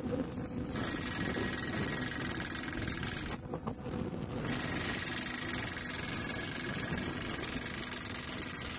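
Anchor drilling rig running steadily as it drills a self-drilling anchor bolt into the ground. A hiss comes in about a second in, drops out briefly a little past the middle, then returns.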